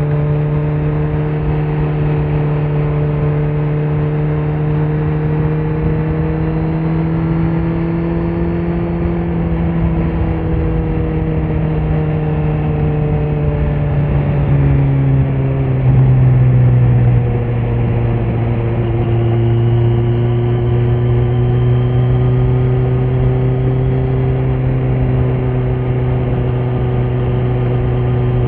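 2018 Kawasaki Z900's inline-four running through a Leo Vince muffler with no dB killer, heard from the rider's seat at a steady cruise. The engine note rises slightly, drops in pitch about halfway through with a brief louder burst just after, then holds and slowly climbs again.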